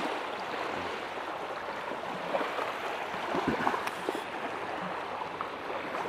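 Small waves of the Curonian Lagoon lapping on a sandy shore: a steady wash of water with a few faint splashes.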